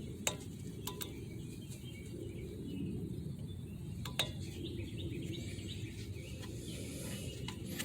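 A few sharp, light clicks from handling the ABS sensor wire and its plastic push-pin retainer, over a steady low background rumble.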